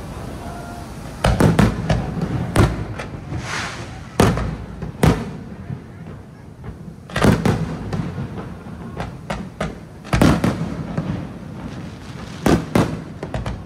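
Aerial fireworks bursting: sharp, loud bangs that come in clusters of several every two or three seconds, with quieter gaps between.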